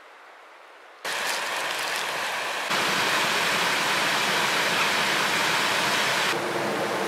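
Rushing water of a stream: a steady hiss that cuts in suddenly about a second in, gets louder at about three seconds and eases a little near the end.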